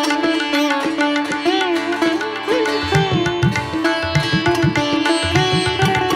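Instrumental music in an Indian classical style: a plucked-string melody with bending notes over a steady drone, with low hand-drum strokes coming in about halfway through.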